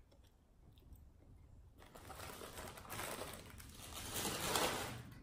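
Close-up chewing of a mouthful of burger. It is faint at first and grows louder from about two seconds in, loudest near the end.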